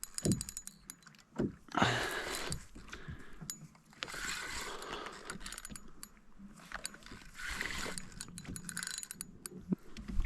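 Fishing reel being cranked to wind in a hooked fish, its gears clicking rapidly in runs, with stretches of hiss in between.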